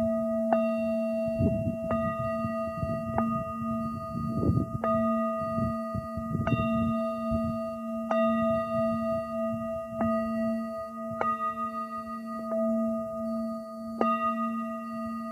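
A small hand-held metal instrument struck again and again, about once every second and a half, each strike ringing on in several steady tones that carry over into the next. Gusts of wind rumble on the microphone, mostly in the first half.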